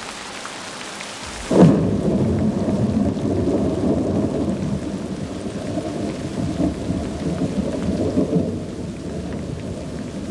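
Thunderstorm: steady rain hiss, then about a second and a half in a sudden thunderclap cracks and rolls into a long, low rumble that slowly dies away.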